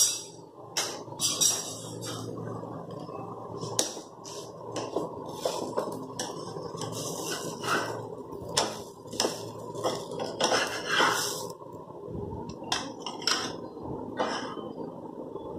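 A spatula scraping and clinking against a flat frying pan (tawa) as an adai is loosened and lifted off, many separate knocks and scrapes over a steady low hiss.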